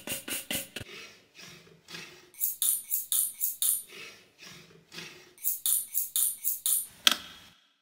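Steel knives and kitchen scissors scraping in and out of the slots of a wooden knife block, played as percussion in a quick, even rhythm. There are two runs of bright metallic strokes with softer strokes between them, and it ends on one louder hit.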